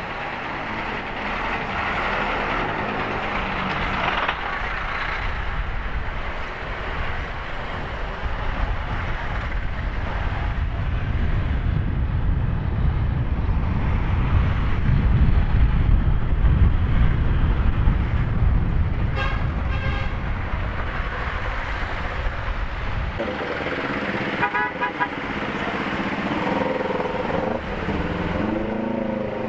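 Riding a Honda Click 150i scooter in road traffic: wind rushing over the camera microphone with the scooter's engine and surrounding traffic, the rumble swelling in the middle. A vehicle horn toots briefly a couple of times in the second half.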